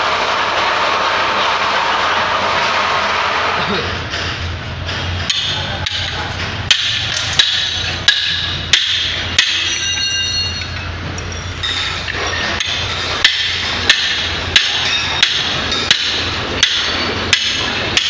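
Hand hammer striking steel on a concrete pump's S-valve (rock valve) assembly as it is dismantled: sharp metallic blows, each with a short ring, about one every 0.7 s in two runs. A steady hiss fills the first few seconds before the hammering starts.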